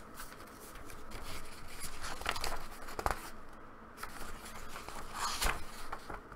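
Paper pages of a poetry zine being handled and turned, rustling, with a few sharper crinkles.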